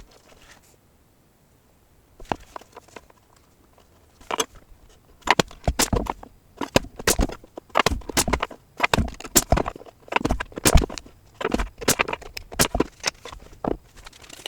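Irregular series of sharp knocks and clicks, hard objects being set down and struck against wood, starting about two seconds in and coming one or two a second.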